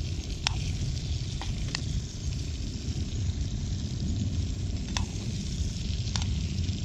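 Barramundi fillets sizzling gently in butter in a small pan over a low campfire, with a metal spoon working in the pan. A few sharp clicks stand out over the steady sizzle.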